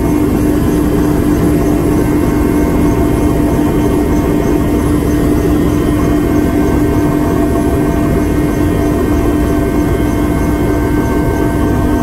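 Aircraft engine drone heard from on board, loud and unbroken, with a strong steady low hum.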